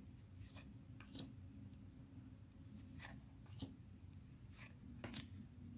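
2021 Panini Prestige football cards flipped through by hand, the top card slid off the stack with about six soft swishes of cardstock, over a faint low hum.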